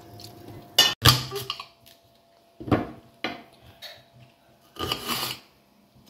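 Kitchen knife cutting leek stalks on a hard cutting board: a few separate crisp cuts and knocks of the blade on the board, the first and loudest about a second in. A silicone spatula scraping in a steel pot may account for the earliest knock.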